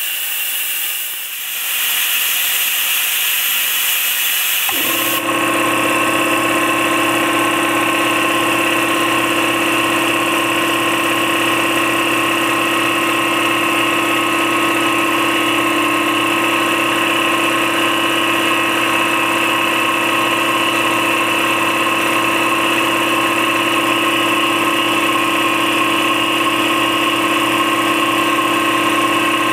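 Compressed air hissing out of the air compressor's tank for about five seconds, until the pressure drops to the cut-in point and the Campbell Hausfeld 60-gallon compressor's 240 V twin-piston pump kicks back on. It then runs steadily, refilling the tank.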